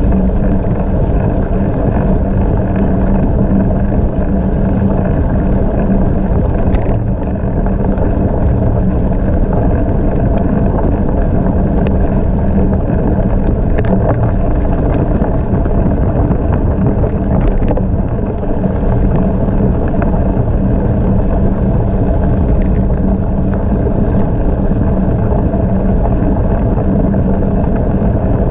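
Steady rush of wind on the microphone over the rumble of bicycle tyres, ridden at speed.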